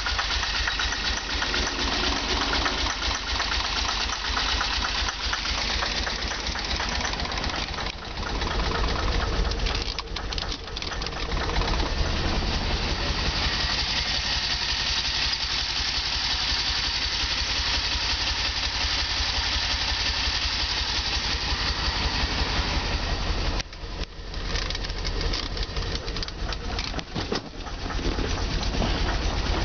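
DeLorean DMC-12's PRV V6 engine idling roughly, with uneven pulsing and a few brief dips in level where it stumbles, around ten seconds in and again near the end.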